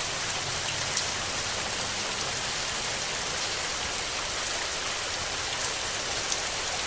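Steady rain falling, an even hiss with individual drops ticking sharply now and then.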